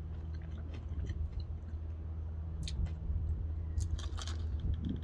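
Close-up chewing of a bite of churro dunked in an Oreo Blizzard, with short crunchy clicks that are loudest about two thirds of the way in, over a steady low hum.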